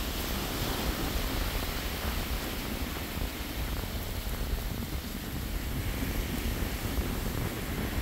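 Wind blowing over the microphone with a low, uneven rumble, over the steady wash of small surf breaking on a sandy beach.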